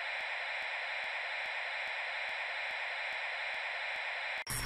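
Steady static hiss of a logo intro's sound effect, with faint regular ticking, broken by a short louder burst near the end before it cuts off abruptly.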